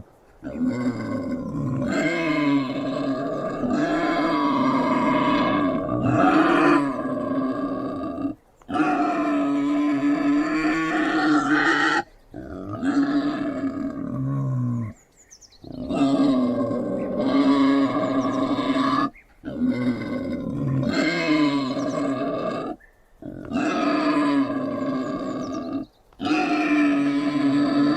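Wild boar growling in a run of long, drawn-out calls, each lasting several seconds and broken by short pauses.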